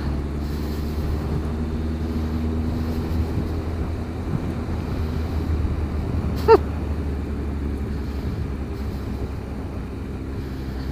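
Motorcycle engine running steadily while riding, mixed with wind noise on a helmet-mounted microphone. There is a brief pitched sound about six and a half seconds in.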